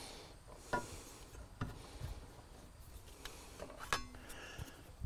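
Faint handling noise: light rubbing and a few soft clicks as hands work a template and marker against a boat's dashboard.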